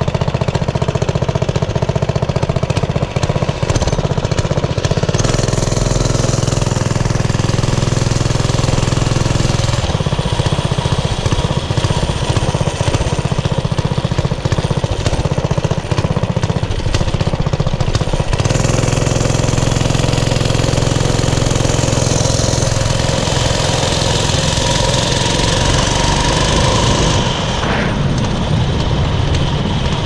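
Briggs & Stratton 6.5 hp Intek OHV single-cylinder engine of a homemade mini bike running under way, with a rapid steady pulsing. Its note shifts up and down several times as the throttle is worked.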